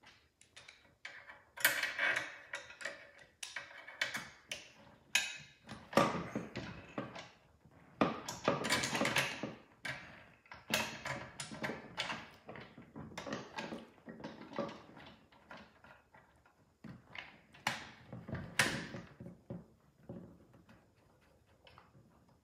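Metal parts of a bike roof rack being handled and fitted together on a wooden table: irregular clicks, knocks and short scrapes.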